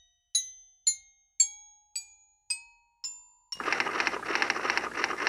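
Intro jingle: seven bright, bell-like chime notes struck about half a second apart, each ringing out and fading. About three and a half seconds in, a loud burst of dense hissing noise with a fast flutter takes over and runs past the end.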